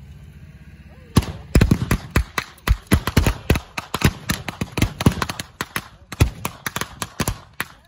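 Small-arms blanks firing in rapid, irregular volleys, several sharp shots a second, with some quick strings like a machine gun. The firing starts about a second in and stops just before the end.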